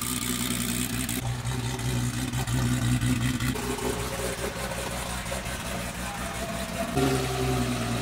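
A vehicle engine idling steadily.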